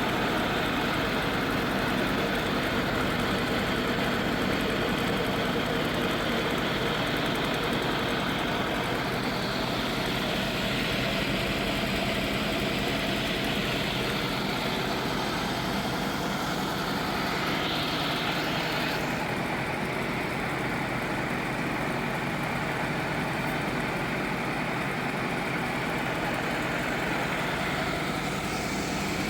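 Motor-driven wheat mill running with a steady drone. Its higher hiss thins out about two-thirds of the way through.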